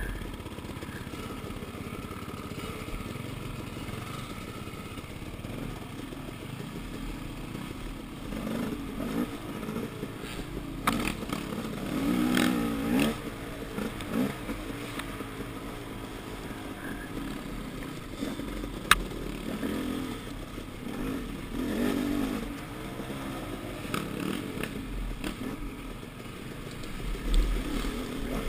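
KTM dirt bike engine running and revving up and down in repeated surges on a rough trail, with chassis rattle and a couple of sharp clicks.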